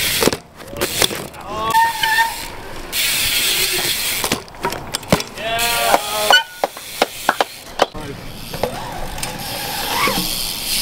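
BMX bikes riding on concrete: tyres hissing over the surface, with sharp clicks and knocks from the bikes landing and hitting the ramps. Short shouts from the riders come about two seconds in and again around six seconds.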